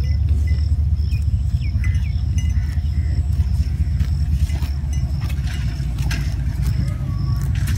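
Distant GEU 40 diesel-electric locomotive's engine rumbling low and steady as it starts an oil tanker train away. Birds chirp over it, with a short high call repeating about twice a second.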